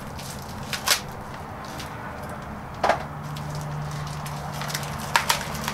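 Plastic packaging crinkling and crackling as a small plucker wheel is unwrapped by hand, with a few sharp crackles about a second in, near the middle and near the end.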